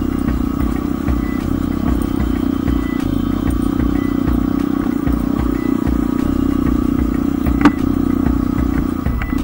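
Motorbike riding along a rough dirt track: a steady engine drone over an uneven low rumble, with the rattle of the bike over the ruts. A single sharp knock comes late on.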